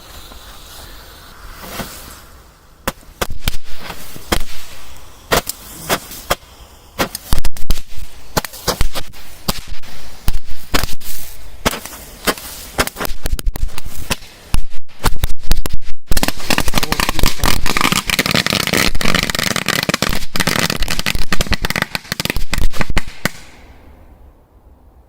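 A Roman candle firing into a vacuum cleaner's opening. A hiss for about two seconds gives way to a long, irregular run of sharp bangs and pops. Near the end these thicken into a dense crackling hiss, and the firing stops about two seconds before the end.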